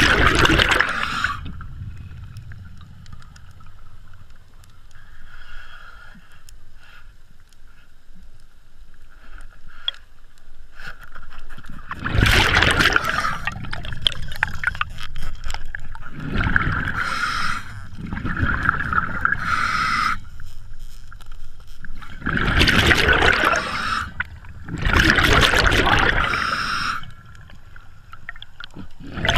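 Scuba diver breathing through a regulator underwater: hissing inhalations and loud bubbling exhalations. After a quieter stretch of about ten seconds, several breaths follow in quick succession.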